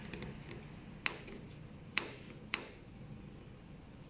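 Sharp metallic clicks from a gear pump's shaft coupling as its sleeve is turned and shifted by hand to check that it moves freely: three distinct clicks, about a second in, near two seconds and half a second later, with a few faint ticks before them.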